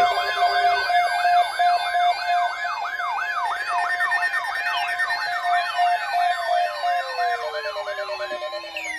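Several sirens sounding together: a fast yelp sweeping up and down about two and a half times a second over a steady tone, with a slow wail winding down in pitch over the last few seconds.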